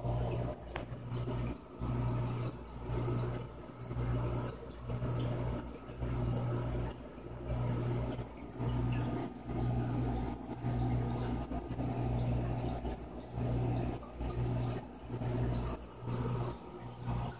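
Aquarium pump humming with water moving through the tank. A steady low mains hum swells and dips about once a second over a wash of running water.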